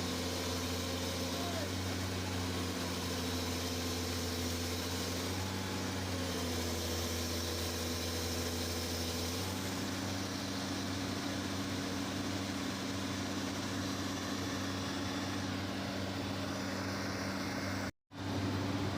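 Diesel engines of hydraulic excavators running steadily, the engine note shifting about six seconds in and again near ten seconds. The sound cuts out briefly near the end.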